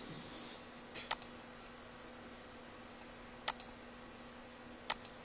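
Computer mouse button clicked about four times, a second or more apart, each click a quick double snap of press and release.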